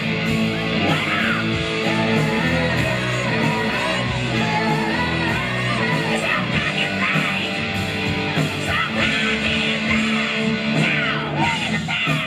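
Live band playing through the venue's PA, with guitars and a vocalist singing, heard from among the audience.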